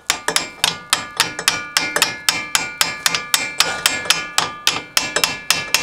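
A hammer striking metal in quick, even blows, about five a second, the struck part ringing after each hit.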